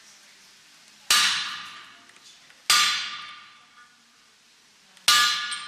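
Three hammer blows on an anvil while iron is forged, each a sharp ringing clang that fades over about a second, with the second and third about a second and a half and two and a half seconds apart.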